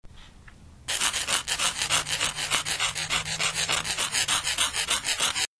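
Chalk scratching on a board in quick, rapid strokes as words are written out. It starts about a second in and cuts off suddenly near the end.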